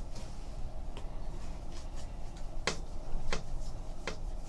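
Trading cards and pack wrappers being handled, with about three short, sharp clicks in the second half.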